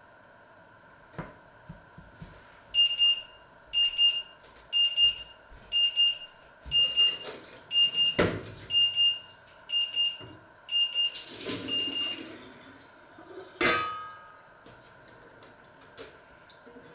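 An electronic kitchen timer alarm beeping, about ten short high beeps one a second, that stops after about nine seconds. A sharp knock sounds partway through, then a metal clatter of the steel pot and its lid, and a single sharp clack a little later.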